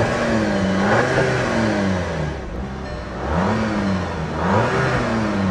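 The 2012 Volkswagen CC R-Line's turbocharged 2.0-litre four-cylinder engine is revved up from idle and let fall back. The first rev comes right at the start and dies away over about two seconds. Two more quick revs follow in the second half, with a turbo whine in the background.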